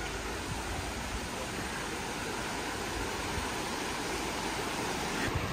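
Shallow mountain stream running over a rocky bed: a steady, even rush of water.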